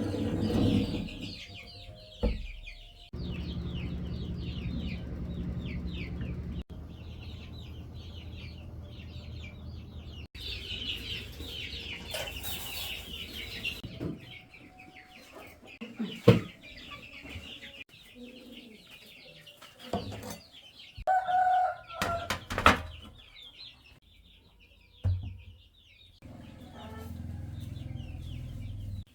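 Birds calling and chattering steadily in the background. A low machine hum comes in twice, early and near the end, and several sharp knocks stand out along the way.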